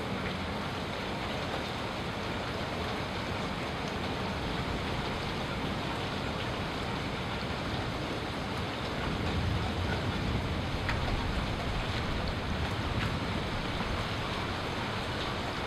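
Steady rain during a thunderstorm: an even hiss with faint scattered drop ticks. A low rumble swells a little past the middle and fades again.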